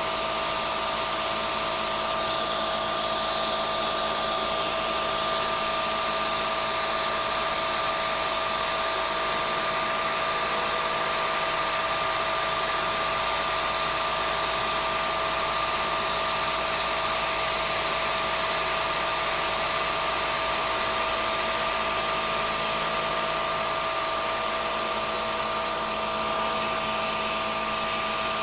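CNC milling machine spindle running and its end mill cutting a stack of steel sheet-metal layers at a slow, conservative feed, under the steady hiss of the mist coolant spray. There is a steady whine with two held tones, and the level hardly changes.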